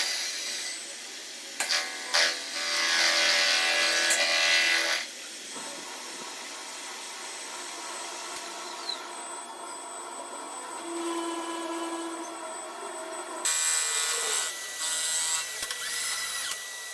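Power tools working in a workshop, in abrupt, separate stretches: a loud noisy stretch a couple of seconds in, a quieter steady stretch in the middle, and another loud stretch near the end.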